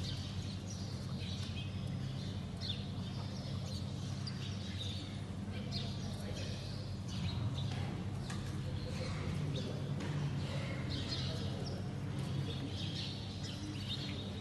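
Birds chirping in scattered short calls over a steady low hum.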